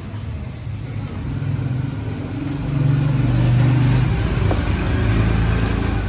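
A motor vehicle engine running nearby, as in street traffic, with a low hum that grows louder about three seconds in and again near the end.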